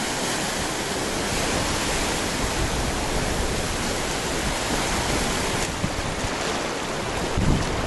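Ocean surf rushing steadily onto the beach, with a few low rumbles near the end.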